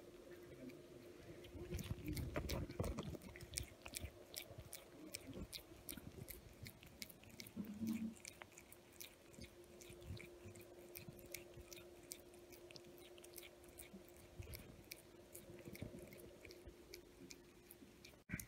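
A cat chewing and licking soft, crumbly white cheese close to the microphone: a quick, irregular run of mouth clicks and smacks.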